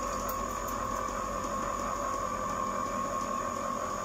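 Compressor ice cream maker running, its motor churning the mix as it freezes: an even, unchanging whir with a constant tone.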